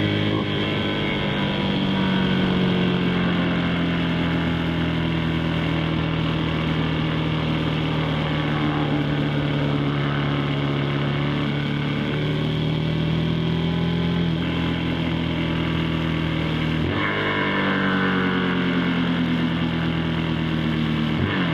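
KTM 390 SMC-R single-cylinder engine and its Stage 2 DNA-filtered intake pulling at a fairly steady rev. About three-quarters of the way through the revs change abruptly and then fall away as the bike slows.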